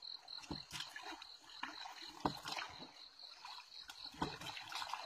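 Light water splashing and lapping with scattered small knocks and clicks, over a faint steady high whine.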